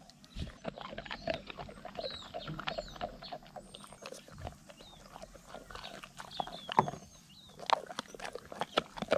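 A dog chewing and gnawing a hard disc of sun-dried dog food, with irregular crunches and clicks of teeth on it all through.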